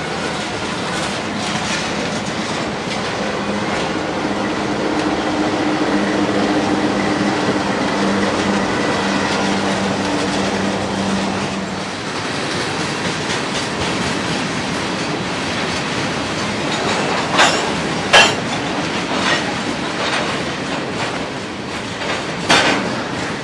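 Freight cars of a CSX mixed freight train rolling past at trackside: a steady rumble and clatter of steel wheels on rail, with a low steady tone for several seconds in the first half and a few sharp clanks near the end.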